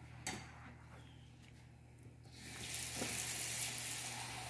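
Kitchen faucet turned on about halfway in: the water runs in a steady hiss into a bowl being rinsed under it. Before that there are a couple of faint knocks of dishes.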